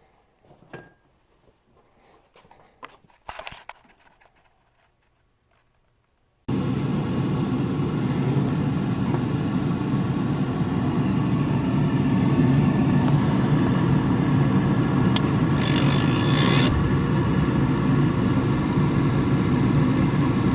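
A few light clicks and handling noises, then about six seconds in a fuel oil furnace burner fires up abruptly and runs steadily, its blower motor and flame making a loud even rush with a low hum. This is the burner's test firing after its new nozzle was fitted.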